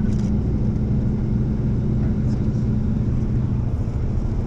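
Tour bus engine running steadily with a low drone and road rumble, heard from inside the cabin.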